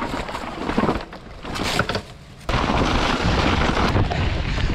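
Wind buffeting the microphone, a rushing rumble heaviest in the low end. It breaks off abruptly twice and then comes back loud and steady about two and a half seconds in.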